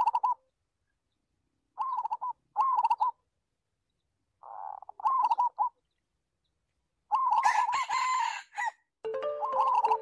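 A rooster, likely one of the free-ranging junglefowl, crowing again and again, about five crows with silent gaps between them. A hiss of noise sits under one crow about seven seconds in.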